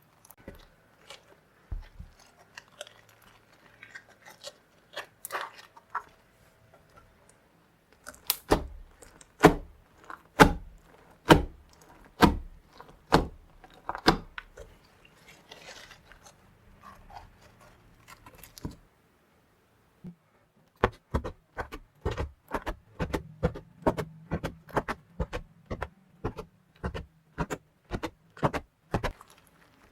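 Clear slime being squeezed and poked by hand, giving sharp wet clicks and pops. After a short silence about twenty seconds in, the pops come in a quicker, steadier run of about two a second.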